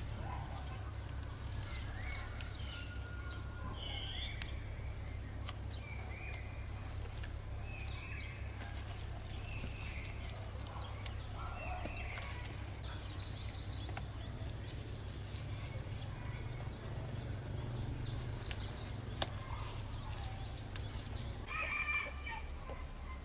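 Scattered short bird calls, likely farmyard fowl, over a steady low hum.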